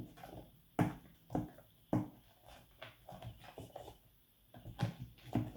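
Spoon stirring half-formed slime in a bowl: a string of irregular wet squelches and knocks, about one every half second to second, with a lull in the middle.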